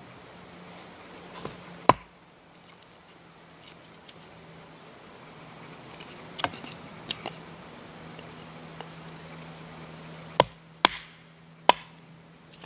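Wooden baton knocking on the spine of a knife blade as it is driven through a stick to split it (batoning). There is one sharp knock about two seconds in, a few lighter taps in the middle, and three loud knocks in quick succession near the end.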